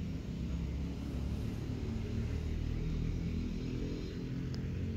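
Domestic cat purring close to the microphone: a steady, low, pulsing rumble.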